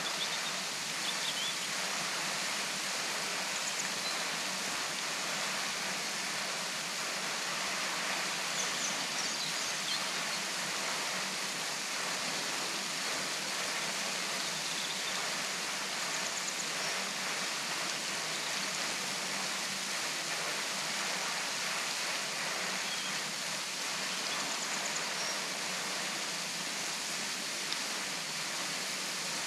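Henrhyd Falls waterfall: a steady, unbroken rush of falling water.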